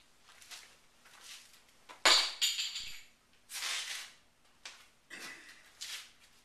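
Scattered rustling and knocking from a person moving about and handling things, with a sharp clink about two seconds in that rings briefly.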